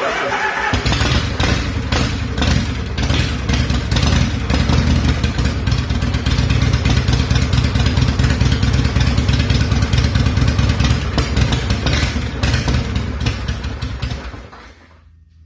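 Harley-Davidson shovelhead V-twin engine of a 1979 FXS Low Rider running, loud and steady with a lumpy, rapid beat. The sound falls away over the last second or so.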